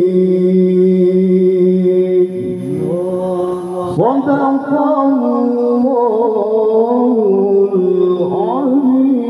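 A man reciting the Qur'an in the melodic tilawah style into a handheld microphone. He holds one long note for the first couple of seconds, then after a short dip sings a run of wavering, ornamented melismatic phrases, with a quick rising flourish near the end.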